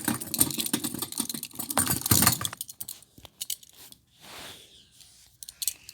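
Metal shackles and handcuff chains clinking and rattling as someone struggles to get free of them: busy for the first two and a half seconds, then quieter with a few scattered clicks.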